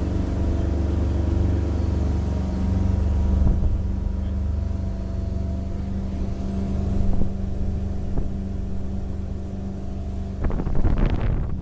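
A 1985 Sea Sprite motorboat's engine running steadily under way, getting a little quieter about a third of the way in. Near the end, wind buffets the microphone.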